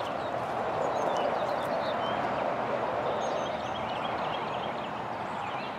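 Small birds chirping over a steady rushing background noise.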